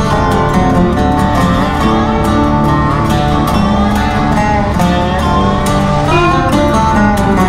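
Background music: a guitar-led tune with a steady beat.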